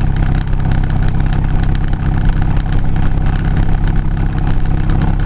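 Steady engine and road rumble of a car heard from inside the cabin while driving.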